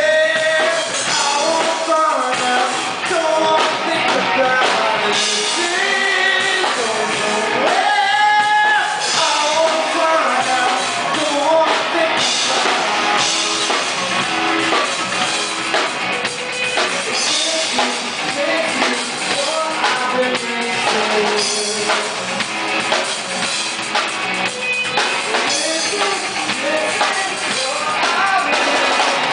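A rock band playing live: a singer over electric guitars and a drum kit, loud and continuous.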